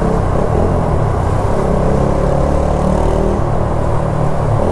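Motorcycle engine running steadily in city traffic, heard from the rider's seat.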